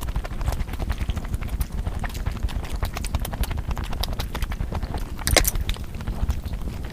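Close-miked eating sounds: chewing and crunching as a dense run of small clicks, with one louder crunch about five seconds in, over a steady low rumble.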